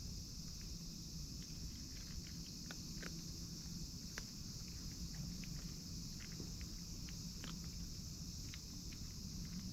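Steady high-pitched chirring of insects in an outdoor chorus, with scattered small ticks and clicks and a low rumble underneath.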